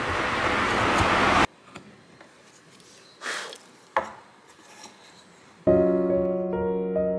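A loud even hiss that cuts off abruptly about a second and a half in, then quiet with a faint carving-knife stroke and a sharp click of the blade in wood about four seconds in. Soft electric-piano music starts near the end.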